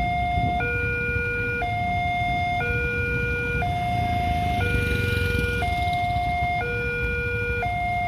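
Railway level-crossing warning alarm sounding for an approaching train: an electronic two-tone signal alternating between a higher and a lower tone, each held about a second, over a steady low rumble.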